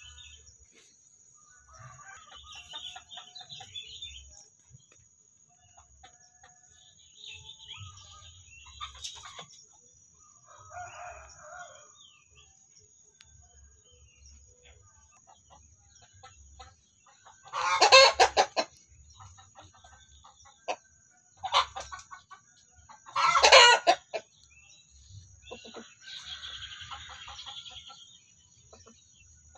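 Free-range chickens: hens clucking softly on and off, and a rooster crowing loudly a little past halfway and again about five seconds later.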